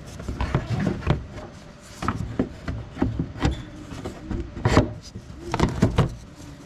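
Plastic engine splash shield being pushed and shifted into place in the wheel well: irregular knocks and scraping of plastic against the body.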